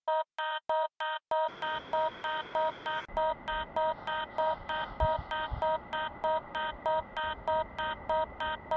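Electronic background music: a short synthesizer note pulsing evenly about three to four times a second over a soft steady bed.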